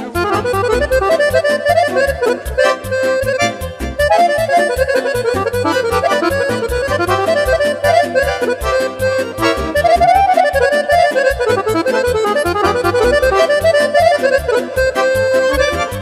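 Instrumental break of Romanian party music: a Roland electronic accordion plays a quick melodic lead over a keyboard's steady rhythm accompaniment.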